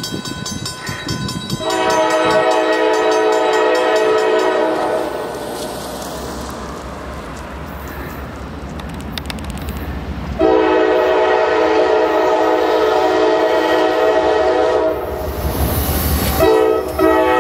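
Norfolk Southern diesel freight locomotive's multi-chime air horn blowing two long blasts, the first about two seconds in and the second about ten seconds in, and starting a third near the end, over the steady rumble of the locomotives and the train's wheels on the rails.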